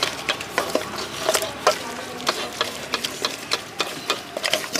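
Flat spatula scraping and clacking against a large metal bowl as a wet, mashed raw green-coconut mixture is stirred and tossed. The strokes come quick and irregular, several a second.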